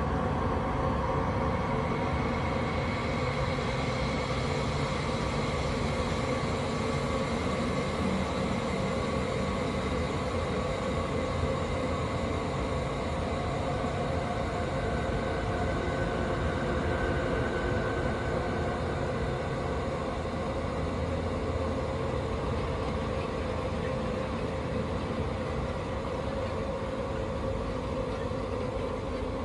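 Steady, rumbling dark-ambient drone used as a horror sound effect, with several sustained tones drifting slowly over low noise.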